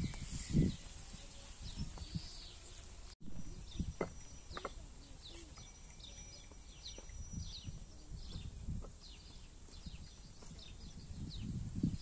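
Small birds chirping in the treetops: short, high, falling calls repeated every fraction of a second, with wind gusting on the microphone in low rumbles. The sound breaks off sharply for an instant about three seconds in.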